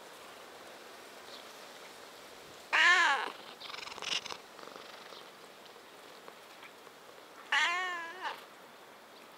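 A domestic cat meowing twice, about four and a half seconds apart, each meow under a second long with a wavering pitch. A quieter, shorter noise follows just after the first meow.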